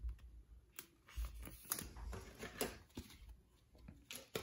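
Faint handling of trading cards and clear plastic: scattered soft clicks and rustles as cards are slid and flipped through by hand.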